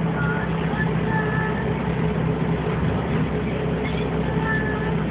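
1965 Volkswagen Type 2 bus's air-cooled flat-four engine running steadily while the bus is driven, heard from inside the cab along with road noise.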